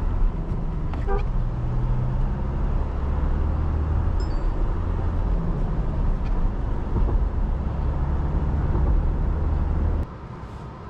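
Mahindra Scorpio N's 2.2-litre mHawk four-cylinder diesel running with a steady low drone, which drops away abruptly near the end.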